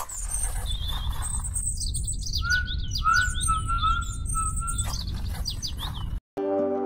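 Several birds chirping and whistling over a steady low rumble, with one bird repeating a short whistled phrase through the middle. It all cuts off suddenly about six seconds in, and slow music with ringing bowl-like tones begins.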